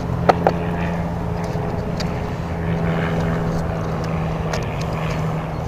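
A steady motor drone in the background, one even hum that does not rise or fall. Two light clicks sound about half a second in, then a few faint ticks, from the plastic bait-trap bottle being handled.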